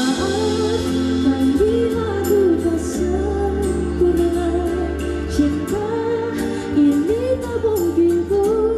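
A woman singing a slow, ornamented melody into a microphone over a stage PA, her held notes gliding and wavering, over a steady low instrumental backing.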